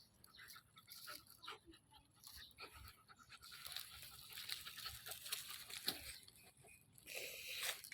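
A dog's faint noises with scattered clicks and crackles, and a louder rush of sound about seven seconds in.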